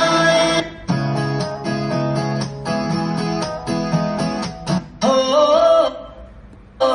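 Songs playing back from a car stereo head unit, cut short as tracks are skipped: a plucked guitar passage, a brief sung phrase about five seconds in, a short pause, then another song starting at the very end.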